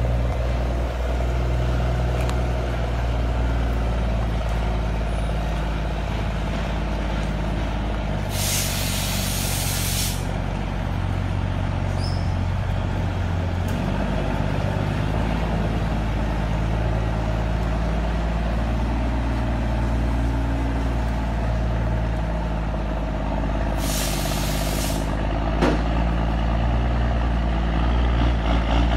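International Eagle 9900ix dump truck's diesel engine running at low revs as the truck creeps ahead. Two long hisses of air come from its air brakes, about eight seconds in and again about twenty-four seconds in.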